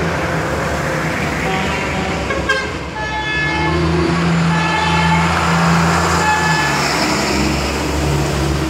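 Military Humvees driving past on a wet street: engines running, tyres hissing on the wet road, and short horn toots on and off. The engine sound swells about three seconds in as a vehicle passes close, then eases after about six and a half seconds.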